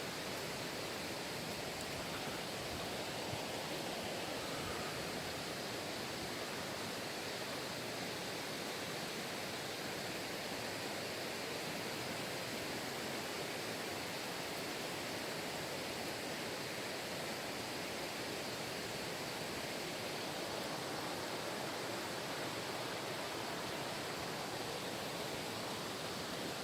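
Mountain stream water rushing steadily, an even hiss with no breaks or changes.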